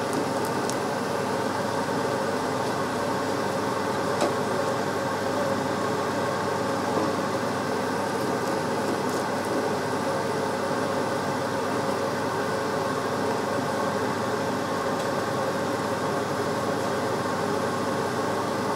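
Kitchen extractor fan running with a steady hum over a large pan of water at a rolling boil, with a couple of light clicks.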